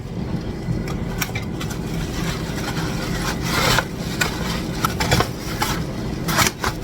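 Scraping and rubbing with scattered short clicks and knocks as air-fried chicken wings are handled and moved into a to-go box, over a steady low hum.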